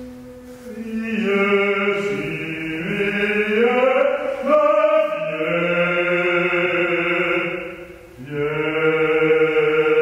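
A solo male voice singing slow, long held notes in a chant-like style, the pitch stepping from note to note. There is a brief break about eight seconds in before the next held phrase.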